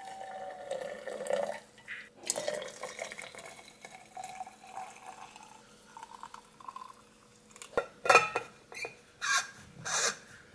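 Household kitchen sounds: water or liquid running, then dishes and cutlery clinking, with a few sharp knocks near the end.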